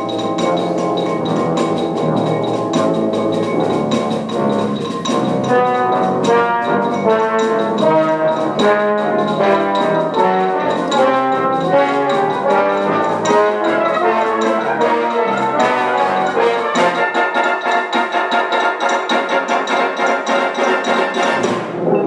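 Brass band of cornets, tenor horns, euphoniums, tubas and trombones playing, with xylophone among the percussion. In the last few seconds the deep low parts drop out, leaving quick repeated notes.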